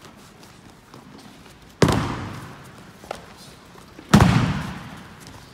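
Two heavy thuds of bodies being thrown down onto the sports-hall mats in breakfalls, each with a long hall echo, the second the louder, with a small knock between them.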